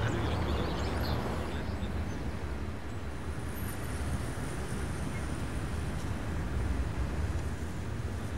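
Steady low rumble of distant town traffic, with a few faint high chirps about halfway through.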